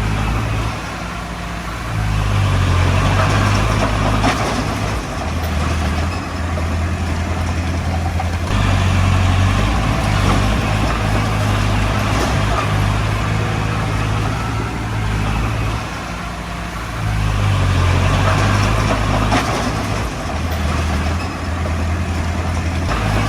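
Komatsu D20P bulldozer's diesel engine working under load, its note rising and easing off several times as it pushes and lets up, with the clatter of the machine and a few sharp knocks.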